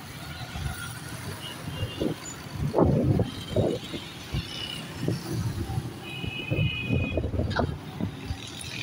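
Busy road traffic, with motorbikes and cars passing and irregular low rumbles, and a brief high beep about six seconds in.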